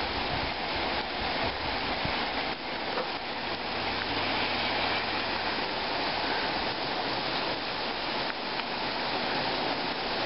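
Very heavy rain pouring down, a steady dense hiss with no letup.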